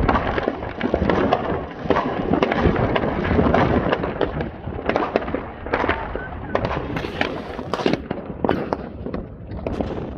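Many fireworks and firecrackers going off at once: a dense, continuous crackle of overlapping pops and bangs, with sharper single reports standing out in the second half.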